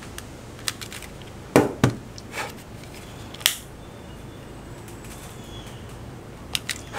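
Close handling noises of paracord and small gear: four light clicks and taps in the first half, then only a faint steady background.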